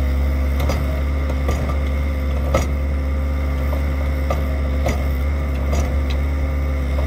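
Steady drone of the diesel engines of an Avant 640 compact loader and a Lindner Lintrac tractor running close by. Scattered knocks come through it, with a sharper one about two and a half seconds in, as manure drops from the loader bucket into the steel tipper trailer.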